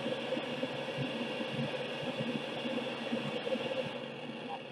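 Gas brazing torch burning with a steady hiss and a rough low crackle.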